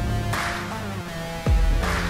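Electronic dance music with held synth tones and swelling noise sweeps, and a deep bass note dropping in pitch about one and a half seconds in.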